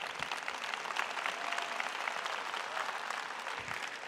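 Large audience applauding, a dense, steady patter of many hands clapping.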